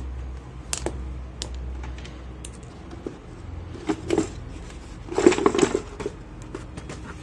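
Hard plastic clicks and knocks of a vacuum cleaner's casing being handled and opened. A few single clicks come first, then a short cluster near four seconds in and a louder clatter of knocks at about five seconds.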